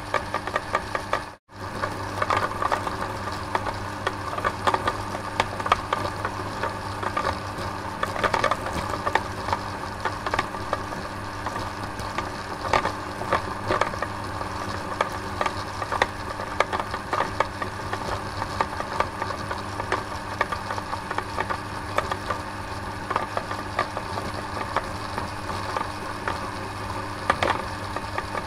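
Small electric machine running, a steady low hum under a continuous rapid clatter of irregular clicks and rattles. The sound cuts out for a moment about a second and a half in, then carries on unchanged.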